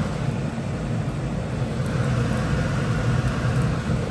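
A steady low droning hum, with a faint high whine held throughout, from machinery running in the kitchen.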